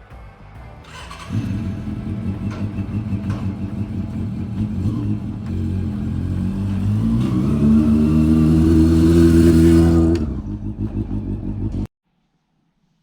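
Honda NSR50 small two-stroke motorcycle engine at full throttle, its pitch climbing steadily to a peak before the throttle is shut off about ten seconds in. It keeps running lower for a moment, then stops abruptly.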